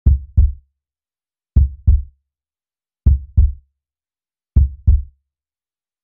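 Slow heartbeat sound effect: four pairs of deep double thumps, lub-dub, about one and a half seconds apart.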